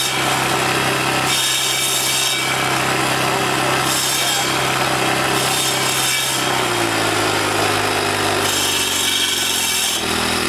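Troy-Bilt four-stroke sidewalk edger, refitted as a small stump grinder, running hard as its blade grinds down a tree root. The grinding swells every couple of seconds as the blade bites into the wood, and about two-thirds through the engine's pitch drops.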